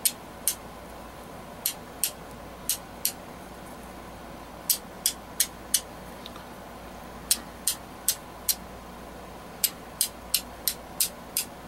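Black flint struck repeatedly with a handmade steel striker to throw sparks. About twenty short, sharp, high-pitched strikes come in quick runs of two to four, with brief pauses between the runs.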